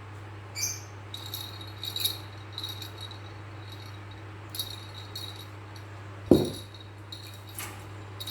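A cat playing with a feather toy: scattered light rattles and rustles, and one solid thump about six seconds in, typical of a pounce or landing. A low hum sits underneath throughout.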